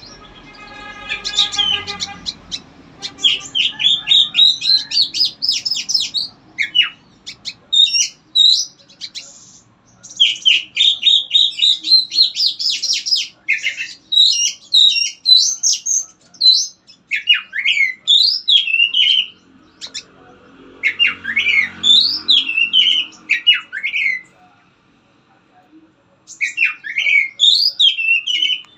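A songbird singing: rapid, varied phrases of chirps and whistles in bursts, with short pauses between them and a longer pause about two thirds of the way through.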